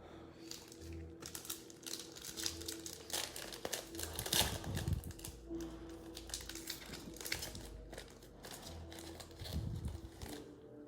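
Crinkling of Mosaic football trading-card pack wrappers being handled and torn open, in irregular rustles.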